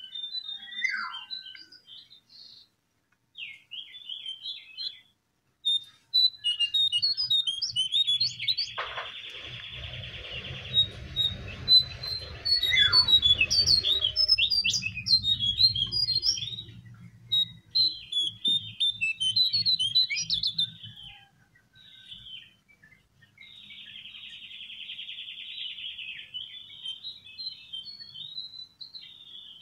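Cingcoang coklat (jongkangan, the lesser shortwing) singing: rapid high chirps and whistled notes in broken phrases, with a buzzing trill about eight seconds in and again around twenty-four seconds in. A low hum runs underneath through the middle part.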